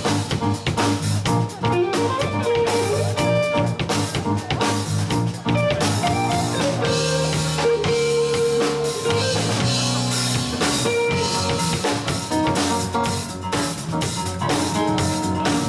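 Live band playing an instrumental funk piece: electric bass, electric guitar, keyboard and a drum kit, with steady drum hits under held guitar and keyboard notes.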